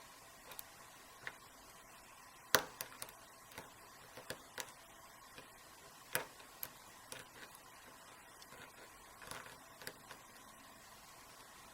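Small, sharp, irregular clicks of a lock pick and tension wrench working the pins inside a Master 6835 aluminum lockout padlock during single-pin picking. The loudest clicks come about two and a half seconds in and again around six seconds, with a few quicker ones near the end.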